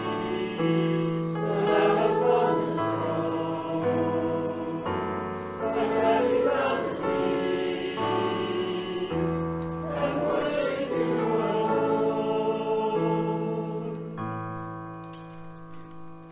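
Voices singing a worship song together over held chords from an accompaniment. Near the end the final chord is held and fades away.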